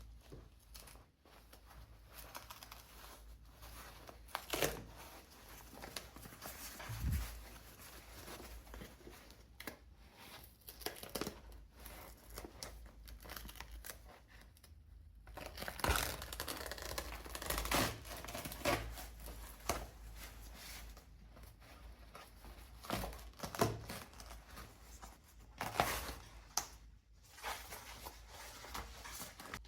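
Close-up handling of a leather bag and restoration materials: irregular rustling, crinkling and scraping, with sharper scrapes now and then, loudest about halfway through and again near the end.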